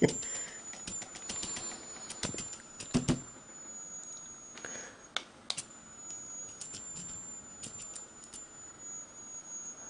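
High-voltage circuit of a homemade static grass applicator built from an electric fly swatter, whining with a thin high steady tone while its metal mesh sieve is shaken over glue. Scattered sharp clicks and snaps come through it, and the whine breaks off briefly about halfway.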